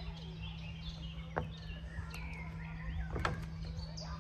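Small birds chirping, with a couple of sharp clicks about a second and a half in and about three seconds in, over a steady low hum.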